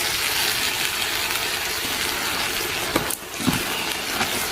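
Peas frying in oil in a pan with a steady sizzle. About three seconds in there are a few short knocks of a utensil against the pan, and the sizzle briefly drops.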